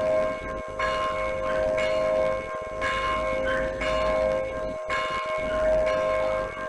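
Church tower bell ringing, struck again every second or two, each strike ringing on into the next.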